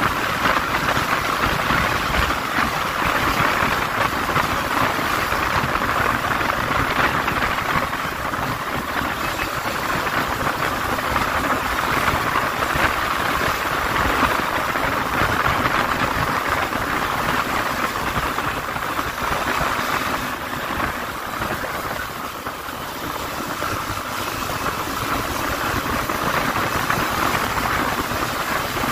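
Yamaha Lander 250 motorcycle being ridden at steady speed: its single-cylinder engine running under a constant rush of wind and road noise on the helmet-mounted microphone.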